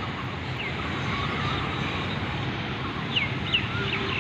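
Outdoor ambience: a steady low rumble with birds chirping, several quick falling chirps bunched together about three seconds in.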